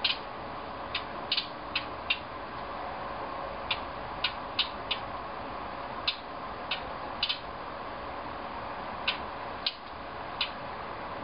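A yellow songbird giving sharp, dry clicking calls at irregular intervals, about fifteen in all, some in quick pairs, over a steady background hum.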